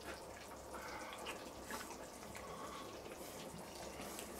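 Kettle stew bubbling and simmering: a faint, steady burble with small irregular pops.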